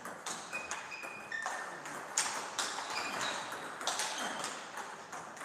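Table tennis ball being struck back and forth in a rally, a run of sharp clicks of the celluloid ball off rubber paddles and the table, some with a brief high ring.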